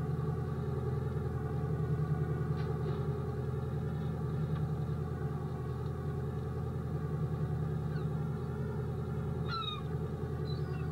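Creel boat's engine running steadily, with a few short gull calls near the end.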